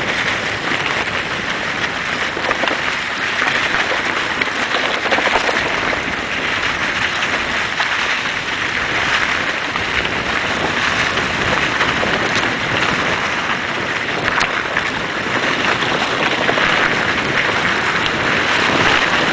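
Steady rushing of wind on the microphone of a camera riding on a descending mountain bike, mixed with the tyres rolling over a dirt trail covered in dry leaves.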